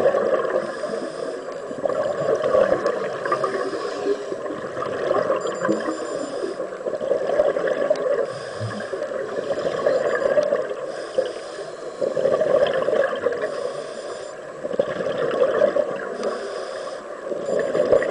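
Scuba diver breathing through a regulator underwater: bubbling, gurgling exhalations and hissing inhalations alternating in a steady cycle, a breath every two to three seconds.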